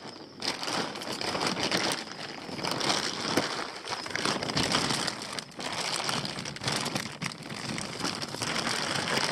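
Clear plastic shipping bags and shredded newspaper packing crinkling and rustling as hands dig through a packing box, in a continuous, uneven stream of crackles.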